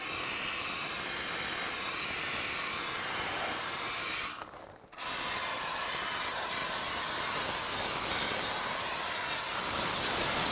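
Spray foam insulation gun from a pressurised canister kit spraying foam onto a stone foundation wall and rim joist: a steady high hiss that stops for under a second a little before the middle as the trigger is released, then starts again.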